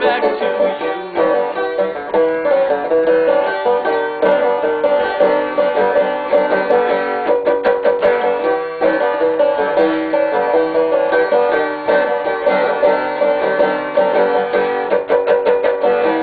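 Banjo played solo: a steady, unbroken stream of picked notes with no singing over it.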